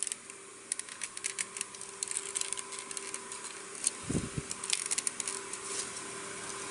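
Rapid plastic clicks and rattles of a transforming figure's parts and joints being pried apart and shifted by hand, with a dull thump about four seconds in.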